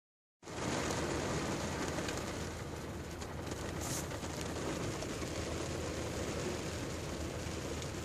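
Rain falling on a car's windscreen and roof, heard from inside the car: a steady hiss made of many fine drop taps, with a low steady hum underneath. It starts about half a second in.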